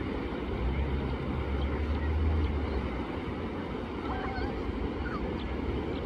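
Sea waves washing steadily on the beach, with a low rumble swelling between about half a second and three seconds in, and a few faint, short bird chirps.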